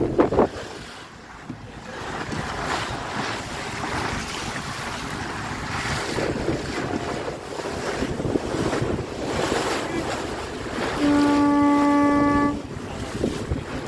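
Wind buffeting the microphone and choppy water rushing past a small boat under way. Near the end a boat horn sounds one steady blast of about a second and a half, the loudest sound here.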